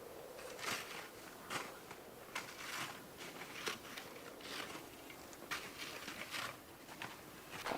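Footsteps crunching in snow, about one a second, with some rustling between them.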